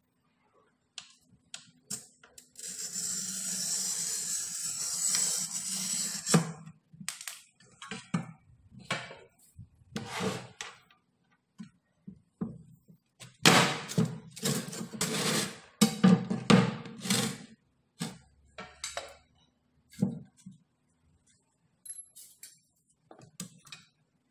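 Glass cutter scoring a polished black granite slab: a continuous scratching hiss for about four seconds. This is followed by a series of knocks and short scraping strokes as the slab is handled on the wooden board, busiest about halfway through.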